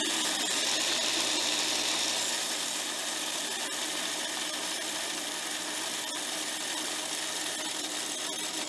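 Cassida C500 electric coin counter running steadily as it counts a batch of dimes, the motor and the coins passing through it making one continuous mechanical noise that stops abruptly near the end.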